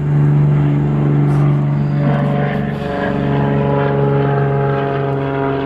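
Light propeller airplane's engine running with a steady drone.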